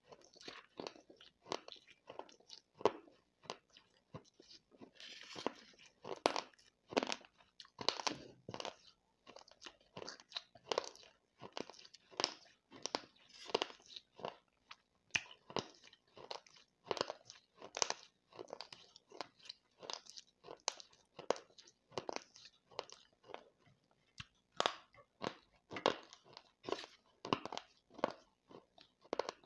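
A person chewing dry, gritty baked clay pot crumbles and powder: a quick, uneven run of crunches, about two or three a second, with a softer hissing rustle about five seconds in.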